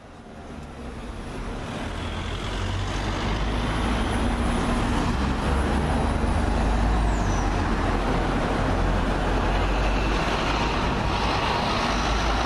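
London double-decker buses, a New Routemaster passing close and a Volvo B9TL Gemini 2 pulling away, with a steady low engine rumble over road noise. The sound fades in over the first couple of seconds.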